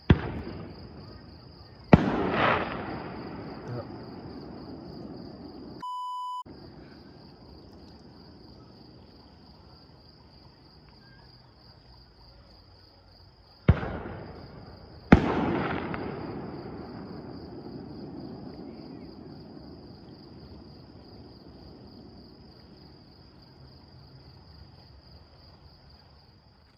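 Fireworks bursting: four loud booms, two near the start and two more in the middle, each followed by a long rolling echo that dies away over several seconds. Insects trill steadily under them, and a short beep sounds about six seconds in.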